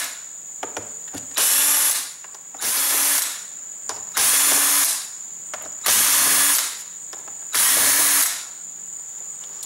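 Cordless drill with a 5/32 Allen bit backing out socket-head screws one after another: five short runs of about half a second to a second each, roughly every second and a half, with light clicks between as the bit is moved to the next screw.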